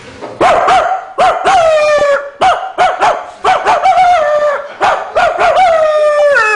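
A man imitating a dog barking: a run of high, yelping barks, a few drawn out and falling in pitch, the last one long.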